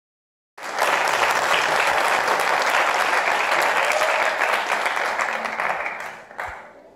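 Audience applauding, starting abruptly about half a second in and dying away near the end, with one sharp knock just as it fades.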